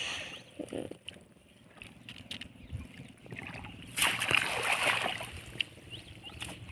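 Wet gill net being hauled by hand out of the water into a boat: water splashing and dripping off the mesh, with small knocks. It gets louder about four seconds in as a length of net comes up out of the water.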